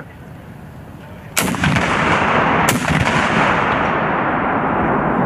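An M3E1 Carl Gustaf 84 mm recoilless rifle fires with a sudden sharp blast, followed by a loud, sustained rushing noise and a second sharp crack about a second later.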